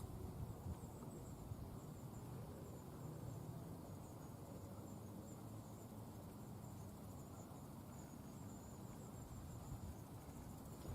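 Faint outdoor natural ambience: insects trilling thin and high in an uneven, wavering line, over a low steady rumble.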